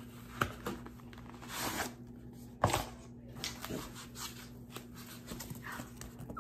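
Cardboard gift box being opened and its white foam insert slid out and handled: scattered rustles and scrapes with light clicks, and a sharper knock a little under three seconds in.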